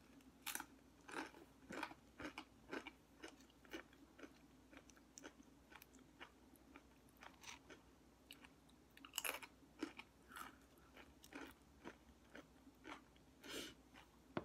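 A person chewing and crunching mouthfuls of food close to the microphone, with sharp crunchy bites about once or twice a second and a few louder crunches near the middle and end.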